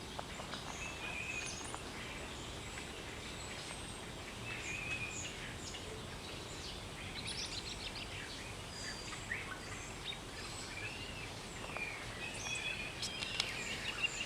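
Forest ambience: several birds calling with many short, varied chirps and whistles over a steady background hiss.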